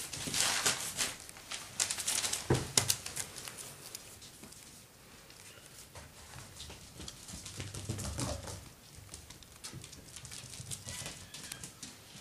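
Parson Russell Terrier puppies scrabbling over spread newspaper: the paper rustles and crinkles and small claws tap under their paws, busiest in the first three seconds, then lighter and more scattered.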